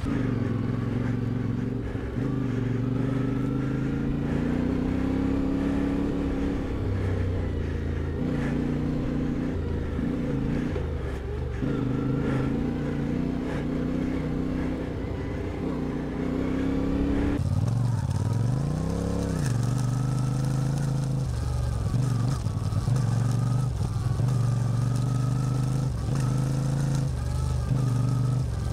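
CFMOTO 450MT's parallel-twin engine running under way, its pitch climbing, dropping and stepping with the throttle. About two-thirds of the way in the sound changes abruptly, and the engine then revs quickly up and back down.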